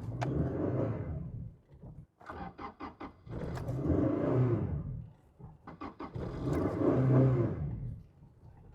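A Toyota Tacoma 2.7 four-cylinder engine catches and runs briefly, then dies away, three times over while the clutch is popped. It is the starting-and-dying of an engine that acts as if it is not getting fuel, with lean codes set.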